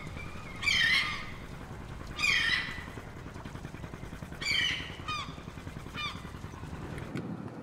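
Bird calls: three louder calls, each a quick run of falling notes, about a second and a half to two seconds apart, with a few short chirps after them, over a steady low outdoor rumble that cuts off about seven seconds in.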